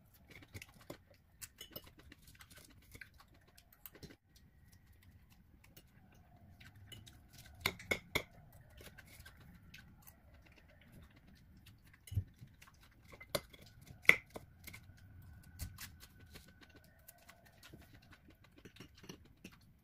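Eating at close range: chewing of fried noodles and salad, with sharp clinks of a metal fork against the plate and bowl, a few louder ones past the middle of the stretch.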